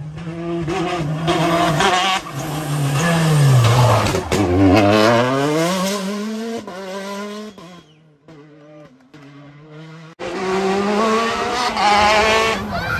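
Peugeot 208 T16 rally car's engine at full stage pace, revving hard up and down through the gears as it comes through, then fading about eight seconds in. After a sudden cut about ten seconds in, another rally car is heard revving hard.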